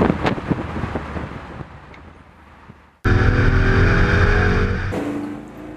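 Supercharged V8 of a 1948 Buick Super convertible driven hard through a road tunnel, its exhaust crackling unevenly and fading away. About three seconds in it cuts abruptly to a louder, steady engine drone that eases off near the end.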